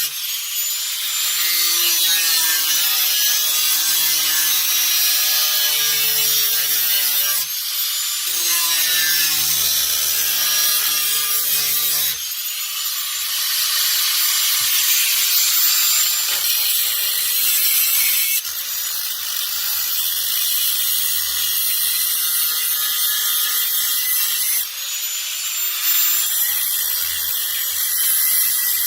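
Power saw cutting through the car's sheet-metal rear floor pan above the fuel tank: a loud, shrill, continuous cutting noise whose pitch shifts abruptly every few seconds.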